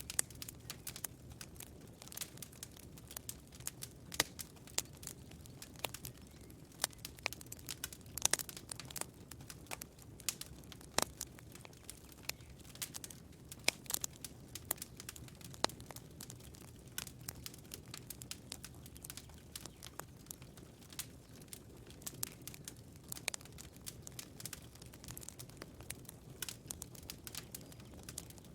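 Campfire crackling: irregular sharp pops and snaps, some louder than others, over a soft steady low rumble of the fire.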